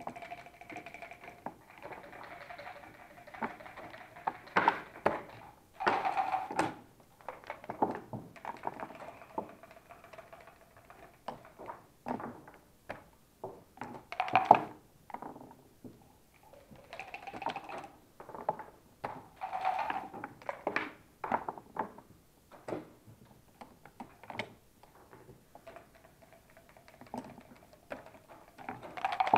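Backgammon checkers clicking and knocking as they are moved on the board, with dice landing and the game clock being pressed, in an irregular run of sharp taps. A faint steady hum runs under it in places.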